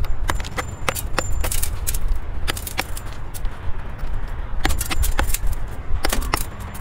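Slag and lead button from a gold-assay smelt being knocked and handled: a run of sharp, irregular clicks and knocks of hard material, over a low steady rumble.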